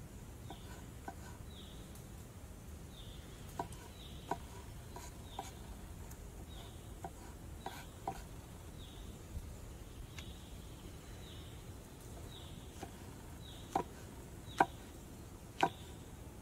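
Chef's knife slicing button mushrooms on a wooden cutting board: irregular sharp taps of the blade meeting the board, the three loudest coming in the last few seconds. A short, high, falling chirp repeats in the background about once a second.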